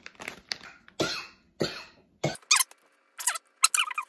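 A man coughs three times in quick succession, starting about a second in, followed by short, high, voice-like sounds.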